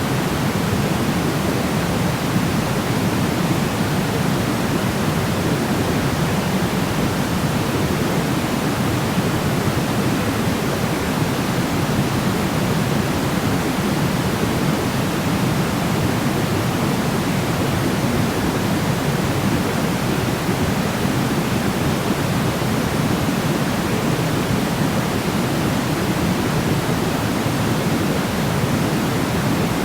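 Steady, unbroken sleep noise: an even rushing hiss, heavier in the low end than in the highs, that does not change.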